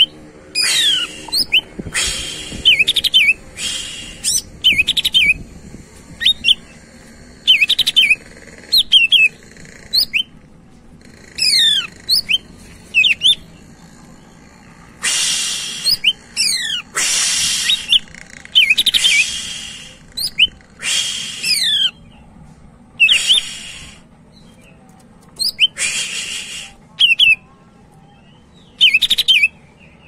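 A caged green leafbird (cucak ijo) singing loudly in a vigorous, varied song. Its phrases come every second or two, made of rapid, sharply falling whistled notes mixed with harsh rasping bursts.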